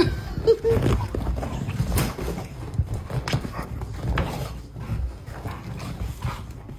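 A dog making a run of short, irregular vocal sounds, mixed with knocks and thumps.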